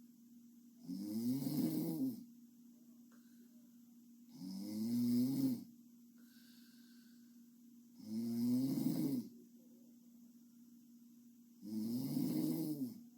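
A young woman snoring in her sleep: four long snores, one about every three and a half seconds, with a faint steady hum between them.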